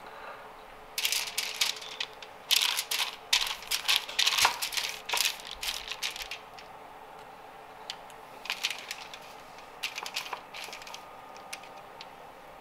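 Aluminium foil lining a baking pan crinkling and crackling in quick bursts as a raw salmon fillet is lifted and brushed with butter on it, busiest from about a second in to halfway through, with a few shorter crackles later.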